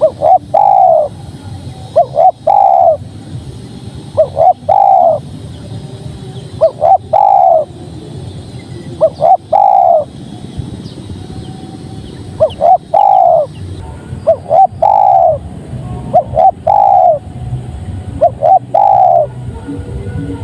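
Spotted dove (tekukur) cooing its song over and over, about one phrase every two seconds. Each phrase is two or three short notes and then a longer, falling coo.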